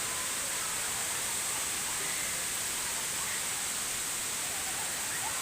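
Waterfall's falling water: a steady, even rushing hiss.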